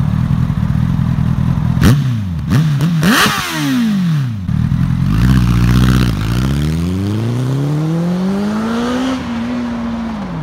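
Honda CBR1000RR Fireblade's inline-four engine idling, then revved sharply a few times, rising and falling quickly. The bike then pulls away, its engine note climbing steadily as it accelerates, holding briefly and dropping near the end.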